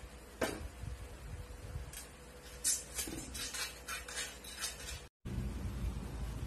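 Siamese cat pawing at water in an enamel basin: a run of small splashes and clinks against the metal bowl. The sound breaks off abruptly about five seconds in, and a low hum follows.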